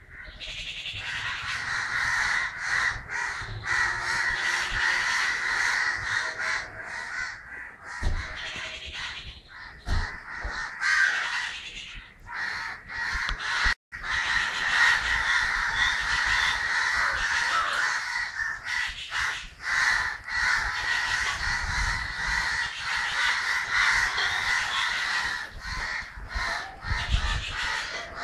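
A crowd of crows cawing continuously, many harsh calls overlapping. There is a momentary break about halfway through.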